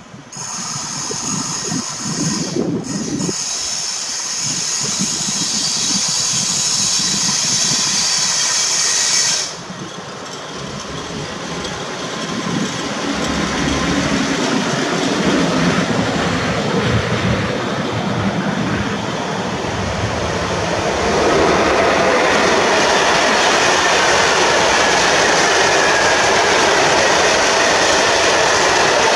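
Trains passing close on electrified main line: an electric locomotive goes by, then a freight train of open coal wagons rolls past with a steady rumble and clatter of wheels on rail. The sound is loudest and most even in the last third.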